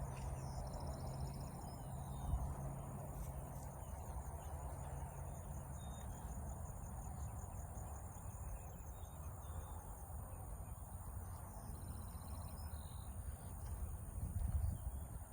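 Rural ambience: insects, crickets among them, trilling steadily in a high band, with scattered short bird chirps over a low rumble that swells near the end. A steady low hum runs under it for the first few seconds.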